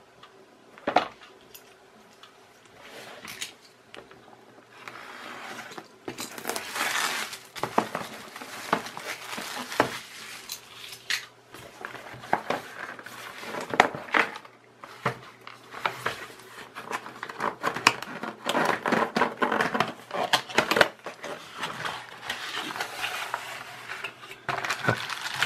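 Handling and unpacking of a cardboard kit box: irregular knocks, taps and scrapes as it is turned and opened, with crinkling of the plastic bags of parts inside.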